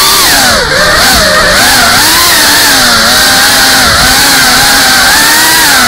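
GEPRC CineLog35 FPV drone's motors and propellers whining, heard from the camera on the drone, with the pitch wavering up and down with throttle over steady wind rush. The whine drops briefly less than a second in.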